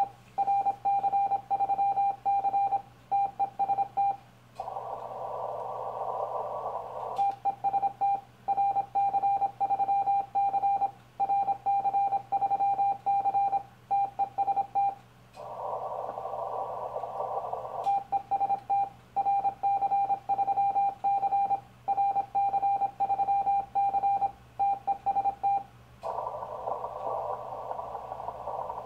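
Morse code CQ call on 40 metres from a Yaesu FT-1000MP Mark-V transceiver, heard as a keyed steady beep. The sending stops three times for about two and a half seconds of receiver hiss while the station listens for a reply, then the call repeats.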